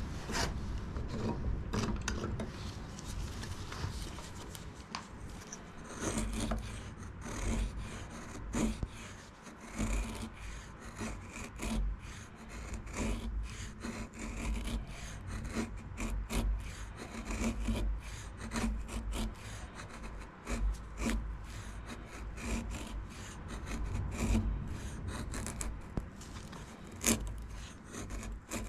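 Folding knife blade shaving and carving wood in repeated, irregular scraping strokes.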